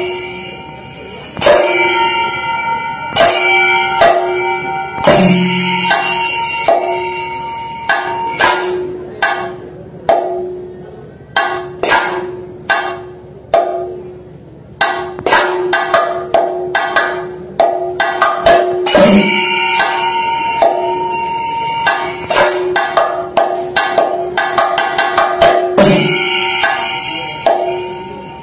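Thayambaka: a Kerala temple ensemble of chenda drums beaten with sticks in fast rolling strokes, with ilathalam hand cymbals ringing through several passages. The drumming thins to slower, spaced single strokes in the middle before building back into dense playing.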